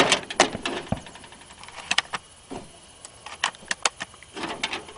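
Shotgun shells being handled and pushed into a Saiga-12 magazine: a string of irregular sharp clicks and short rattles.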